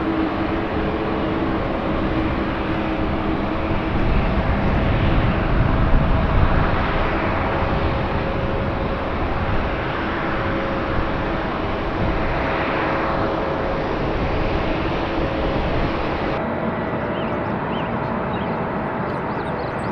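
Boeing 787-9 Dreamliner jet engines running: steady jet noise with a few steady engine tones, swelling a little about a quarter of the way in and again past the middle. About three-quarters in it cuts abruptly to a slightly quieter steady jet noise with short bird chirps over it.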